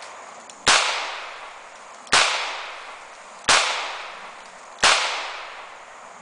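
Charter Arms Pit Bull double-action revolver in .40 S&W firing 180-grain hollow-point rounds: four shots at an even pace, about one and a half seconds apart, each followed by a long fading echo.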